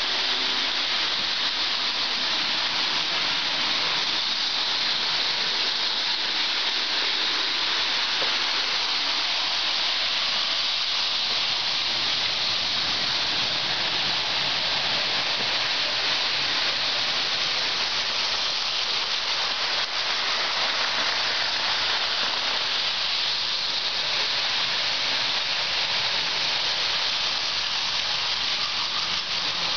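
Lionel O gauge model trains running on the track, a steady rolling hiss with no breaks.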